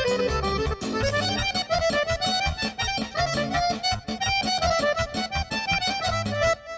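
Serbian folk dance music led by accordion: a fast running melody over a steady, regular beat.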